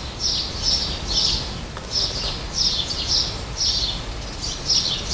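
A bird chirping over and over, short high chirps about two a second.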